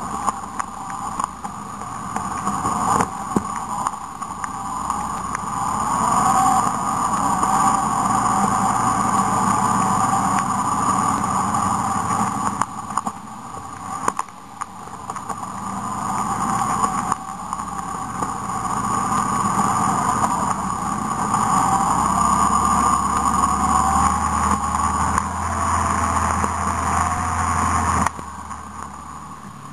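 Ride along a rough dirt trail heard from a mounted camera: a steady rushing drone that swells and dips with speed, broken by knocks and rattles over bumps, and quieter near the end.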